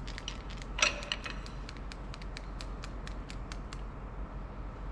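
Ratchet on a long wrench handle clicking in quick, irregular succession while a Volvo D13 main bearing cap bolt is angle-tightened through 120 degrees, with one louder creaking click about a second in.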